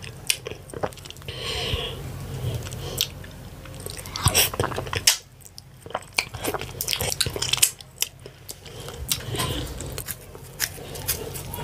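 Close-miked eating of fufu with ogbono and ewedu soup: soft, wet chewing broken by many sharp lip smacks and mouth clicks at an irregular pace.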